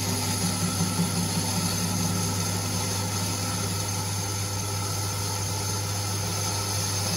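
Myford ML7 metal lathe running with a steady hum as the tool takes a light finishing cut on a turned shaft, close to finished size.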